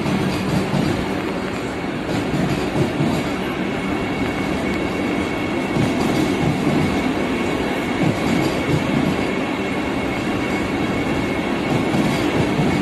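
Vande Bharat Express train running over a damaged stretch of track: a continuous rumble and rattle of wheels on rail with irregular knocks and a steady high whine, the vibration and noise caused by the bad track.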